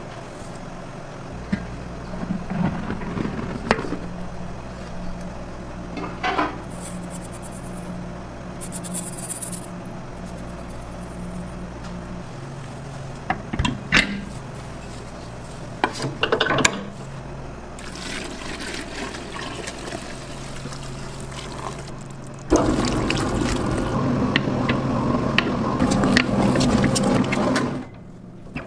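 Commercial dough mixer with a dough hook kneading pizza dough in a steel bowl: a steady motor hum, with scattered knocks and clinks. A much louder stretch of mixing lasts about five seconds near the end.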